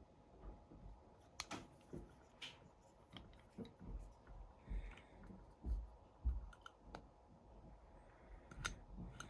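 Sonic screwdriver replicas being handled and moved against one another: scattered light clicks and taps, with a few dull knocks about four to six and a half seconds in.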